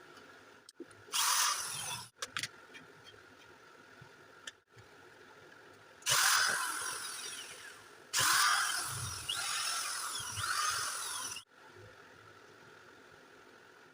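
Forte wall chaser motor switched on in three short runs, a high-pitched whirring that is loudest as each run starts and then eases off; the last and longest run stops abruptly.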